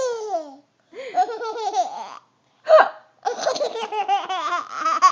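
High-pitched laughter in several bouts, broken almost three seconds in by one short, sharp hiccup from a woman with the hiccups.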